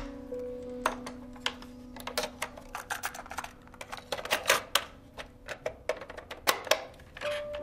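Quick, irregular plastic clicks and rattles from a small portable player being loaded and its buttons pressed by hand. The loudest clicks come about four and a half and six and a half seconds in, over a held low note of background music.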